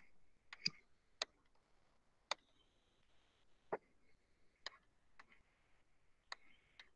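Faint, irregular clicks, about nine in seven seconds, from the pen or mouse input used to write labels on a computer whiteboard.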